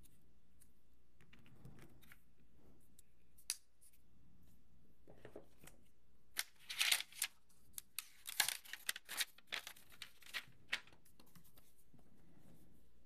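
White cardboard packaging box of an iPad mini 6 being handled: one click a few seconds in, then about four seconds of paper-like rustling and scraping with sharp clicks as the lid and inner tray are moved and fitted together.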